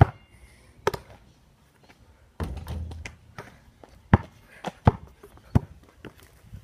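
A series of sharp knocks and taps. There is a duller, longer thump about two and a half seconds in, and three knocks near the end come at an even pace, about two-thirds of a second apart.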